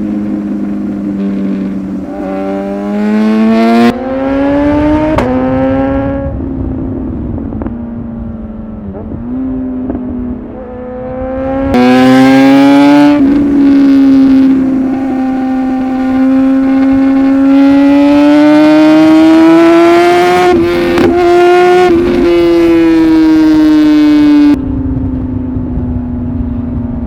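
Superbike engine accelerating hard under load. Its pitch climbs and drops back twice in quick upshifts a few seconds in, eases off, then rises in one long pull from about halfway before the throttle closes sharply near the end. Wind rushes past the microphone throughout.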